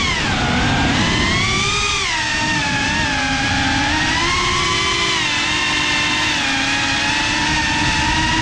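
GEPRC Cinelog 35 cinewhoop's brushless motors and ducted propellers whining. The pitch drops sharply just after the start, rises again about two seconds in, then holds fairly steady with small swells as the throttle changes.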